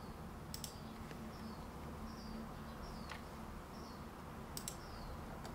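Faint steady low hum with a few sharp computer mouse clicks spread through it, and faint short high-pitched falling chirps repeating about twice a second.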